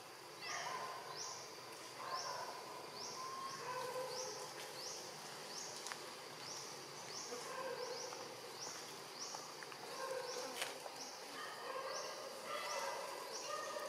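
An insect's high-pitched rising call, repeating about once a second, over an outdoor forest background with fainter, irregular lower calls.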